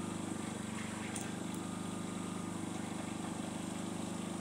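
Pulsar G450RN inverter generator running steadily with no load, an even low hum, its roughly 30-hour break-in done.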